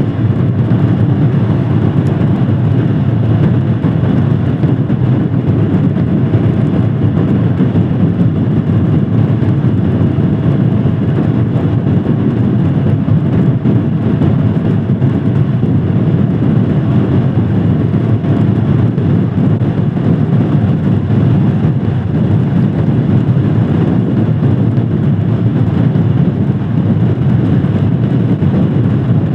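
Royal Enfield Scram 411's single-cylinder engine running at a steady cruise on the move, mixed with a steady rush of wind and road noise.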